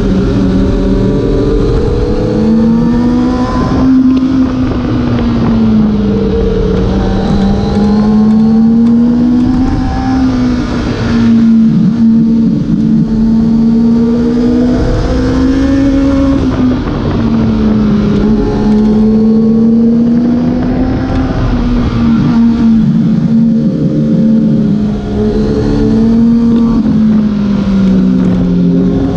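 Kawasaki ZX-6R inline-four engine heard from on board, its pitch rising and falling again and again as the throttle is rolled on and off, over steady wind noise on the microphone.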